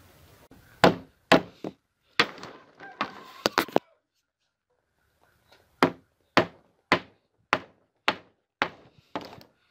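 Hatchet striking the nailed wooden crossbar of a greenhouse frame to knock it loose from its nails: an uneven run of blows, a pause of about two seconds, then seven steady blows about twice a second.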